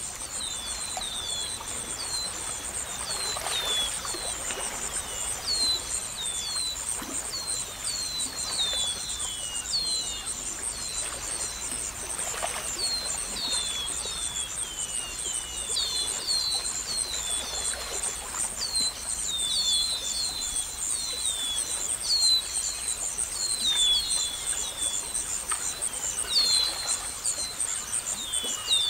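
Outdoor nature ambience: a steady high insect trill with many short, falling bird chirps repeating throughout, often two or three in quick succession.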